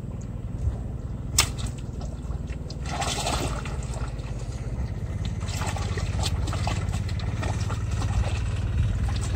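A hooked fish thrashing and splashing at the surface of a narrow canal, the splashing starting about three seconds in and continuing, after a single sharp click about a second and a half in. A steady low rumble lies underneath.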